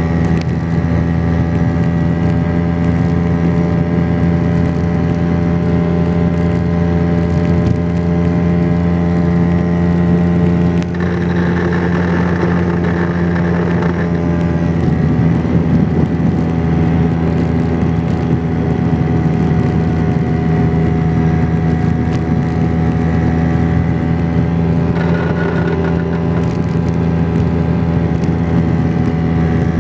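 Vespa PX 125 scooter's single-cylinder two-stroke engine running steadily under way, with a brief dip and change in its note about eleven seconds in.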